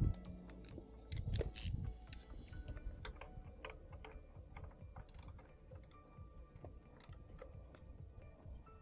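Hand wrench or ratchet tightening motorcycle exhaust bolts: short irregular metallic clicks, with a couple of heavier knocks in the first two seconds.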